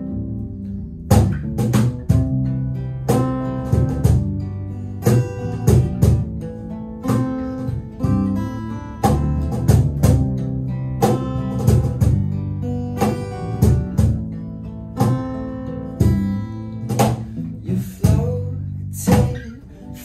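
Instrumental passage of an acoustic surf-flavoured dance-rock song: strummed acoustic guitars over bass guitar notes, with a cajón striking a steady beat.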